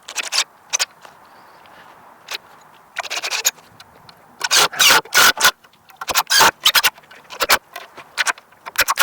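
Irregular scraping and knocking: a string of short, sharp noises in clusters, loudest around the middle.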